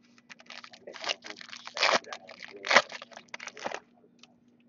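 Foil wrapper of a 2014 Topps Chrome football card pack crinkling and tearing as it is opened, a run of crackles with two louder rips near the middle.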